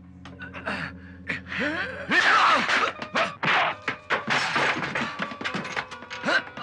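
Film fistfight sound effects: a run of punch thwacks, thuds and crashing furniture, with men grunting and gasping. Background music plays under it.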